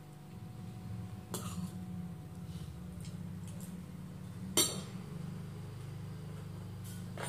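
A steady low hum with three sharp clicks: one about a second and a half in, a louder one about halfway through, and one near the end.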